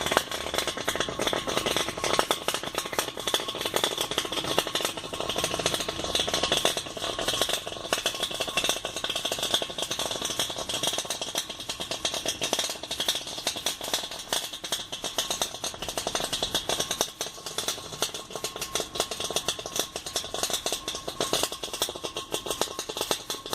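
Washing machine with water cavitating, making a dense, continuous rattling crackle like gravel or sand being shaken, with no pause or change in rhythm.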